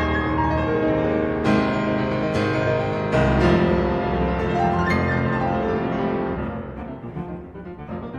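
Background music: piano with sustained low notes, struck chords a few times, fading down near the end.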